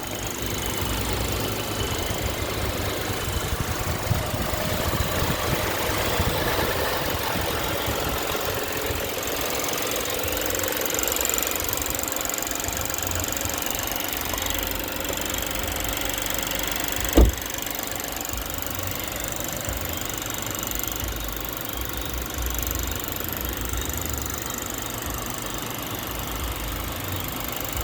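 2008 Toyota Mark X engine running steadily, making a strange noise that the owner takes to be abnormal. A single sharp click stands out about two-thirds of the way in.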